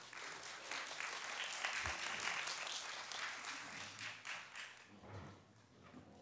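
Audience of women applauding, building over the first couple of seconds and then dying away about two-thirds of the way through.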